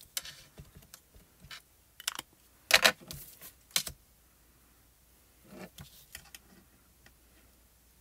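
Small plastic ink cube dabbed against a clear stamp on an acrylic block, making irregular plastic clicks and taps, with a louder cluster of clacks about three seconds in. Softer knocks follow around six seconds in as the acrylic block is set down on the card.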